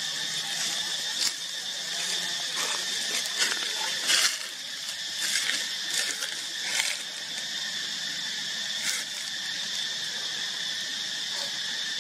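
Steady, high-pitched outdoor insect chorus. Several brief rustling sounds sit over it, mostly in the first seven seconds.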